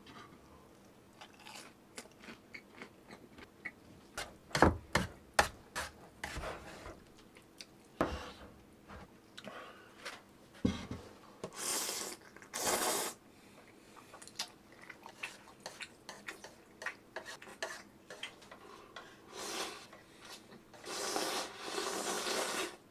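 Close-miked eating: food bitten and chewed with crunching, mixed with sharp clicks and knocks of handling it. A few rustling bursts stand out, two short ones midway and a longer one near the end.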